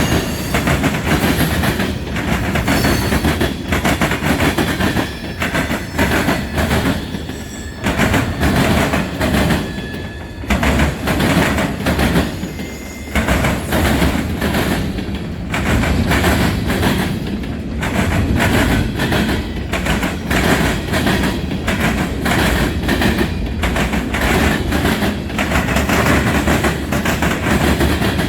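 Freight train cars rolling past, their steel wheels clattering over the rail joints in an irregular run of clicks. A few brief high squeals come from the wheels now and then.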